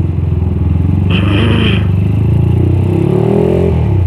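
200cc Suzuki Satria FU single-cylinder engine running in stop-and-go traffic, rising in pitch near the end as the bike pulls away. A short high beep sounds about a second in.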